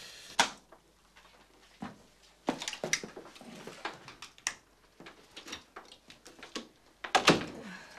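Apartment front door being pushed shut and locked with a key: a string of separate knocks, clicks and key rattles, with a louder clatter near the end.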